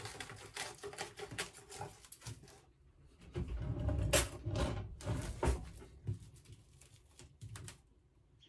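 Plastic cling film crackling and crinkling as it is handled and rolled tight on a countertop. In the middle, a kitchen drawer is opened and rummaged through, a louder rattling and scraping with a few thuds, before the crinkling picks up again.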